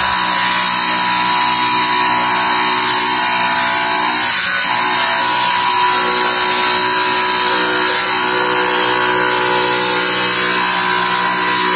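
Clipper masonry table saw running steadily, its blade grinding through a cement tile.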